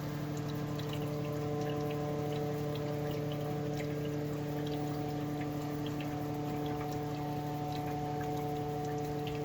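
A steady, unchanging hum with several even overtones, over a noisy background scattered with small irregular ticks.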